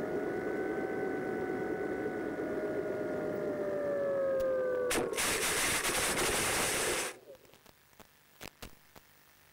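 Electric motor of an RC glider whining steadily, its pitch sagging slightly after about four seconds. About five seconds in, a loud rushing noise takes over for some two seconds, then everything cuts off suddenly to near quiet, with a few faint clicks.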